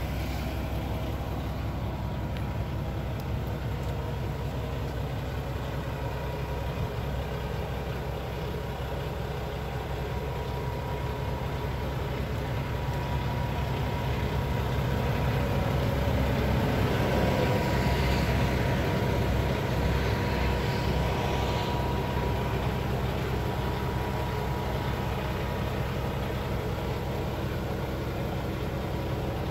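Heavy diesel truck engine idling steadily, a low even rumble that grows somewhat louder about halfway through and then settles back.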